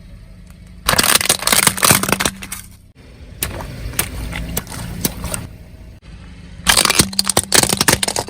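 Things cracking and crunching as they are crushed under a car, in three long bursts of dense crackling, the middle one weaker. A low steady hum runs beneath.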